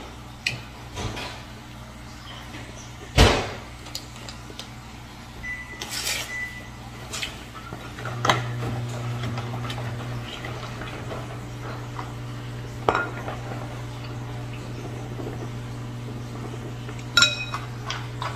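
Plates and cutlery knocking and clinking on a table during a meal, the loudest knock about three seconds in and a ringing china clink near the end, over a steady low hum.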